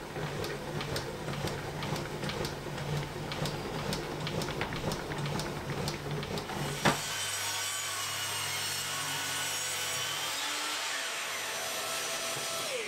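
Evolution R255MTS table saw: for about the first seven seconds a quick run of even clicks as the blade is wound up through the insert by the rise-and-fall mechanism, now working smoothly on its new drive shaft. Then the saw runs steadily, cutting through a length of timber.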